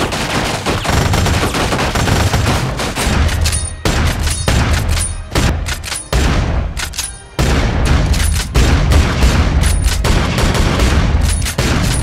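Film battle sound: rapid, almost unbroken rifle fire mixed with blasts and a deep rumble, broken by a few brief pauses.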